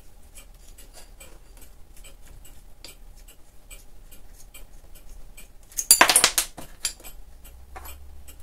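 Light metallic clicks and clinks as the dividing head's crank handle is worked loose and taken off the index plate. About six seconds in comes a short, louder clatter of metal parts.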